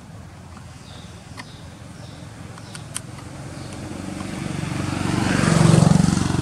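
A motor vehicle passing by. Its engine and road noise swell over a few seconds, peak near the end and begin to fade.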